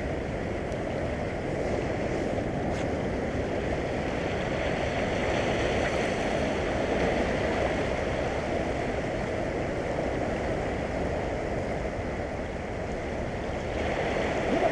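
Sea water washing and swirling around shore rocks, a steady rush of surf that swells near the end.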